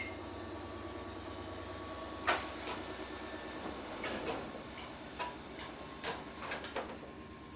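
Inside a Kotoden 1080-series car (ex-Keikyu 1000), a steady hum from the car's equipment, then a sudden sharp burst of air hiss about two seconds in, followed by several clunks and knocks from the single-leaf sliding doors working.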